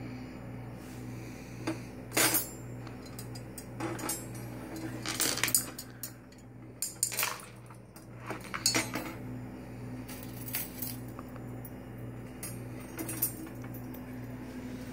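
Irregular clinks and rattles of glass and metal as a glass candle holder in a wire cage, hung with crystal drops, is handled and taken off its metal hanging chain. A steady low hum runs underneath.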